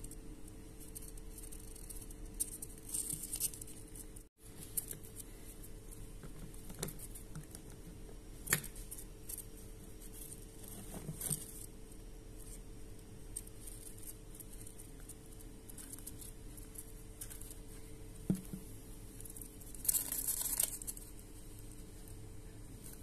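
Hamster's claws scratching and scrabbling on cardboard, with a few sharp light knocks and a longer scratchy burst near the end, over a steady low hum.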